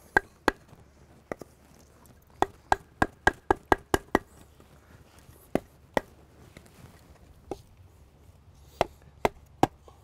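Firewood being split into small kindling pieces: sharp wooden knocks, two at the start, a quick run of about eight from about two and a half seconds in, then single knocks a second or so apart.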